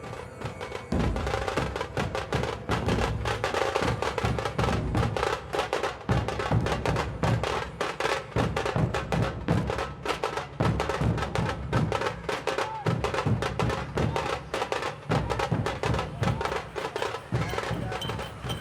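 Percussion music: a fast, dense run of drum strokes with deeper thumps underneath, keeping up steadily throughout.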